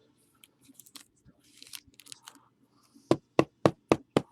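Faint rustling of cards and packaging, then five quick sharp knocks on a hard surface, about four a second, near the end.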